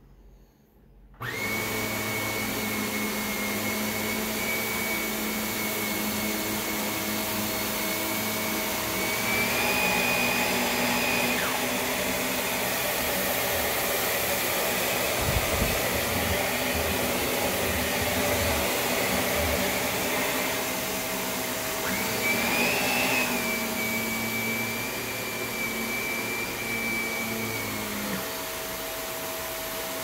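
Shark Rotator Professional Lift-Away (NV500) upright vacuum switching on suddenly about a second in and running steadily while it picks up potato flakes, with a motor whine that rises in pitch briefly twice.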